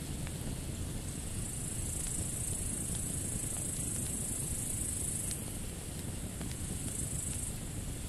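Wood campfire burning with a few sharp crackles over a steady low rushing, while grasshoppers in the surrounding field keep up a high, continuous stridulating buzz that swells about a second in, drops away around the middle, and returns briefly near the end.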